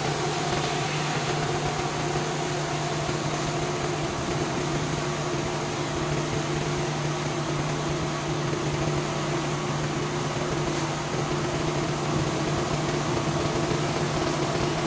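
Pressure washer running steadily while cleaning a concrete driveway: a constant hiss of water spray over the steady hum of the machine.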